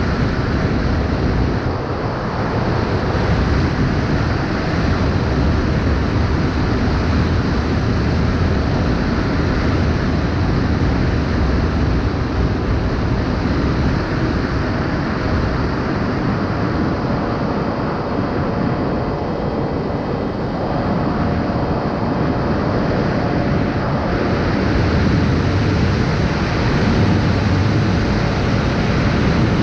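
FPV racing drone in flight: mostly a steady rush of wind over the camera's microphone, with a faint steady motor whine about halfway through.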